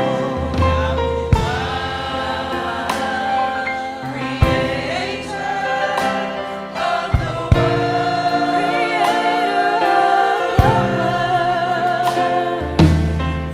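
Choir singing a held, gently wavering melody over sustained voices, with low bass notes and sharp hits about every three seconds.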